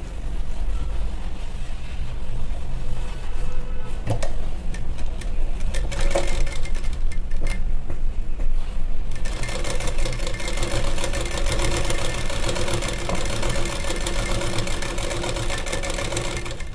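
Sewing machine stitching a seam in blouse fabric: a few short, lighter runs at first, then running steadily and louder from about nine seconds in.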